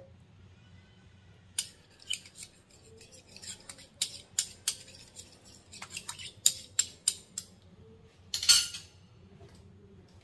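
Metal spoons clinking against each other and against a clay casserole pot as dark soy sauce is spooned in. There is a quick, irregular run of sharp clinks, then one louder clatter near the end.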